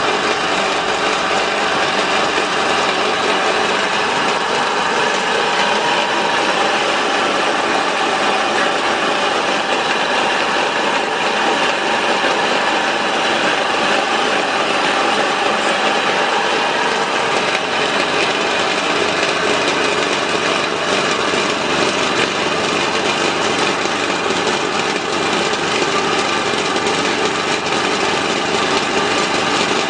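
Small feed pellet mill and its electric drive motor running steadily under load while corn is fed through it, a loud, even mechanical whirr that does not change.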